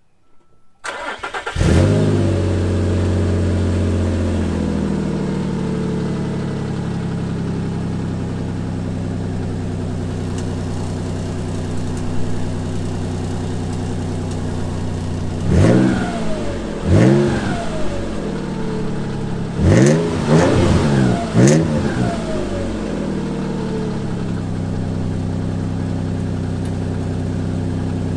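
2006 Nissan Frontier engine heard at the tailpipe through newly fitted cheap aftermarket catalytic converters and cat-back exhaust: a short crank, the engine catches and flares, then settles to a steady idle. About halfway through it is revved in several quick blips, then drops back to idle; a little loud.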